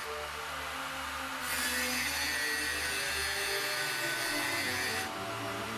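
Angle grinder with a thin cutoff wheel cutting notches into a steel railroad spike, a hissing grind. The cut eases off at the start and again near the end, as the wheel lifts out of the notch between cuts.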